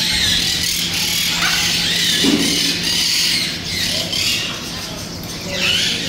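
Many caged parrots, monk (quaker) parakeets among them, chattering with shrill squawks and chirps that overlap throughout.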